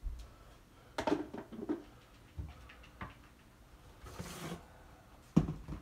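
A cat meows twice, short calls about a second in, among the knocks and clatter of a kitchen cupboard being opened and a coffee canister being taken down, with a sharp knock near the end.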